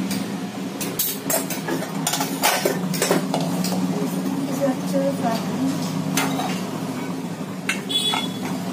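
Metal spoon stirring and scraping dry besan and semolina in a stainless-steel bowl, with scattered clinks of spoon on steel, over a steady low hum.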